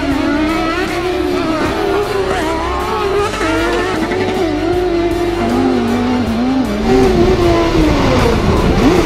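SR1-class off-road race car engines revving, the pitch climbing and falling again and again as the cars accelerate and shift, over background music.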